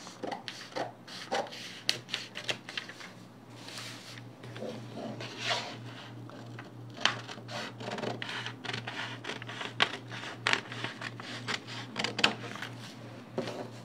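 Scissors cutting through stiff kraft pattern paper: a run of irregular snips and crisp paper rustling as the sheet is pressed and turned, over a steady low hum.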